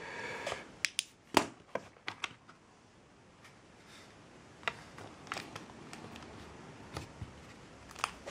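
Scattered light clicks and taps from the LED inspection lamp and its plug being handled, the loudest about a second and a half in.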